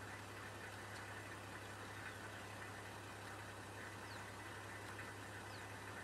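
A vehicle's engine idling steadily with a constant low hum. A few faint, short, high falling notes sound over it, about once every second or so.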